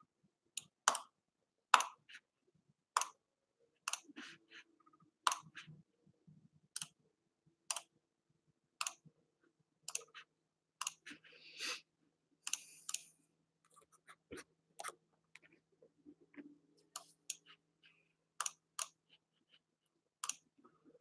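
Computer mouse and keyboard clicks, single sharp clicks about a second apart, with a few longer rattly stretches, as a list is copied from a web page into a spreadsheet.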